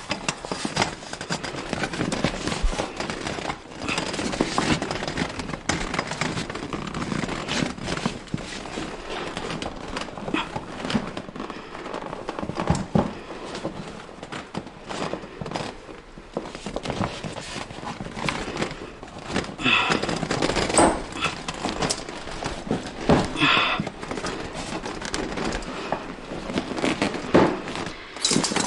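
Hands working inside the fabric hull of a hybrid inflatable kayak: the deck fabric rustling and crinkling, with many irregular small clicks and knocks from parts being fitted.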